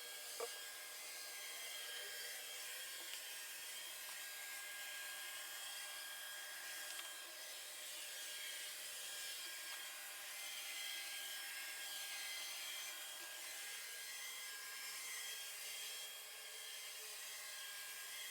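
Robot vacuum cleaner running, a steady whir of its motor and brushes with a few thin high whining tones, swelling and fading slightly as it moves.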